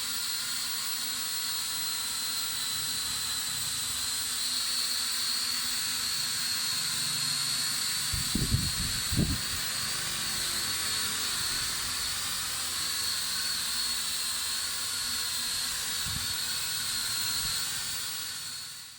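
A K10 toy quadcopter drone's motors and propellers running with a steady high whine and hiss, with two low thumps about eight and nine seconds in. The sound fades out at the end.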